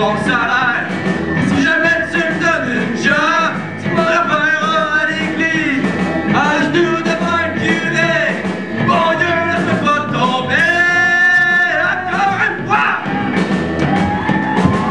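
A man singing into a microphone over strummed acoustic guitars, a live band performance. He holds one long, high note a little past the middle.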